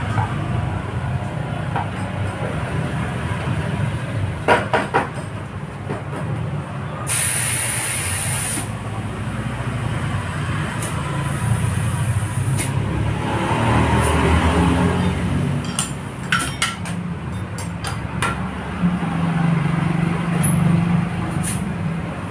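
Workshop work on a scooter's rear wheel rim during straightening: a few sharp metal taps and clicks over a steady low rumble, with a short burst of hissing about seven seconds in.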